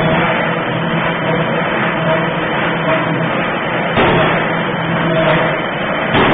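A 1.5-ton forging hammer working red-hot metal. The machine runs with a steady noise, and heavy blows land at the start, about four seconds in, and just before the end.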